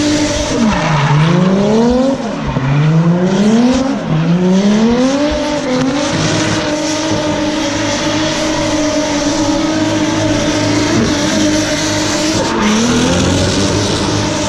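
Drift car engine held at high revs while the rear tyres spin and squeal through a smoky drift. The revs drop and climb back three times in the first few seconds, then hold high and steady, with a brief dip near the end.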